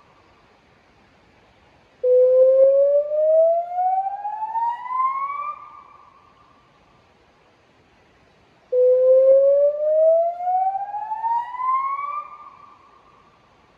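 Electronic river warning siren sounding a warning activation through Bosch LBC-3406 PA loudspeakers. It gives two rising whoops, each climbing steadily in pitch for about three and a half seconds and then dying away, with a quiet gap of a few seconds between them.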